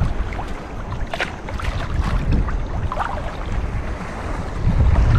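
Strong wind buffeting the microphone in a low rumble, with small water sounds; it gets louder near the end.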